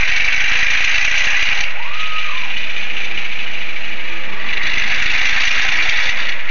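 Regeared, remotored Athearn Hustler HO-scale locomotive chassis running along the track with its shell off: a steady whirring hiss of the small motor and gears. It is louder at the start and again over the last couple of seconds.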